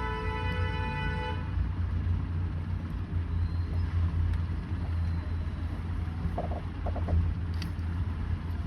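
Steady low rumble of road traffic, with a vehicle horn held for about the first second and a half and a few short beeps about six to seven seconds in.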